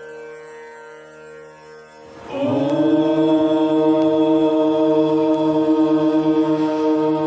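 Soft instrumental devotional music, then about two seconds in a voice begins a long, steady chanted mantra syllable that swells in with a short rising glide and holds, much louder than the music.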